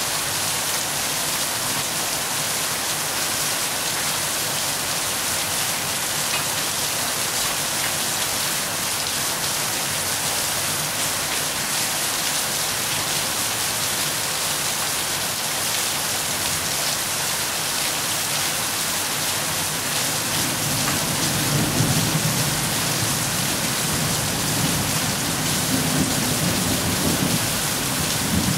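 Steady rain falling, an even hiss throughout. About twenty seconds in, a low rumble of thunder rolls in and lasts for several seconds.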